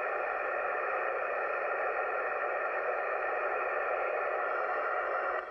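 Steady hiss of HF band noise from a Yaesu FT-857D receiving 20-metre upper sideband with no station on the air. The hiss is held to the narrow voice band of the receiver's filter.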